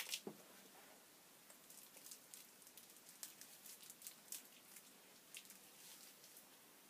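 Near silence with faint, scattered rustles and light ticks from hands gathering long hair to tie it up.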